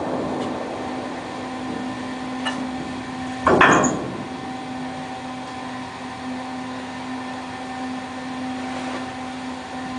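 Steady hum of a ship's deck machinery, with a short loud rattling rush of anchor chain running out through the windlass and hawspipe about three and a half seconds in, during an anchor drop.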